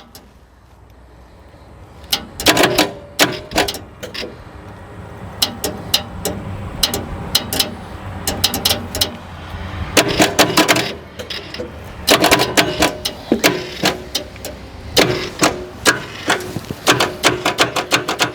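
Starter solenoid on the seized diesel engine of a Kobelco SK160 excavator clicking and chattering over a low hum, in irregular bursts that run together into a fast, even chatter near the end. The starter can't turn the locked-up engine and is overheating, smoking along with the battery.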